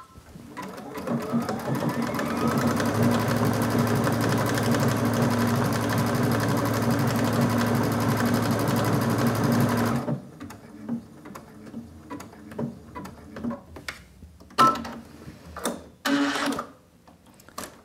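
Brother XV Dream Machine sewing a decorative stitch: the motor speeds up over the first couple of seconds, runs steadily, then stops about ten seconds in as the stitched pattern is finished at the set end point. After it stops come scattered clicks and a short machine beep.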